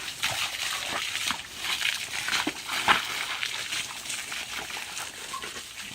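Sprayed water splattering on the ground and on a dog: an uneven hissing patter of many small splashes.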